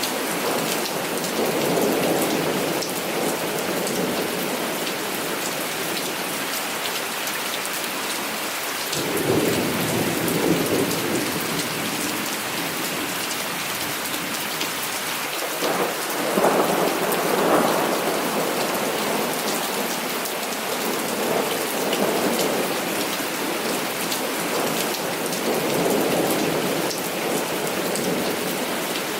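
Heavy rain falling steadily, with thunder rumbling: one roll about a third of the way in and a louder, more sudden one just past the middle, with fainter rumbles between.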